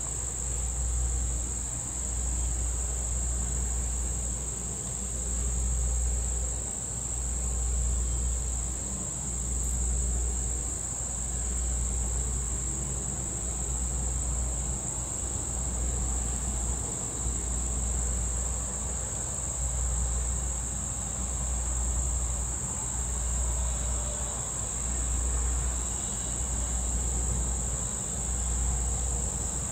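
Steady high-pitched buzzing of insects in chorus, unbroken throughout, over an uneven low rumble that swells and fades every second or two.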